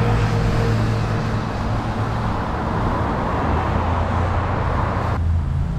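Road traffic noise: a steady rush of passing vehicles and air over a low hum, the rushing cutting off abruptly about five seconds in.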